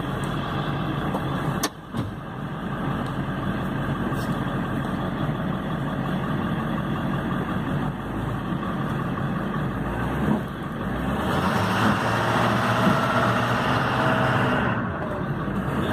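Truck engine running steadily, heard from inside its cab. It grows louder for a few seconds near the end as the truck moves up toward the stuck Jeep.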